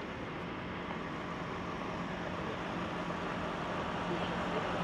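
Steady road-traffic noise, slowly getting louder, with no distinct events.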